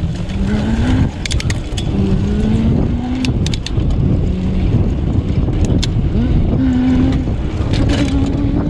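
Wind rushing over the microphone of a handlebar camera on a moving bicycle, with the rider humming a string of low notes and a few sharp clicks and rattles from the bike.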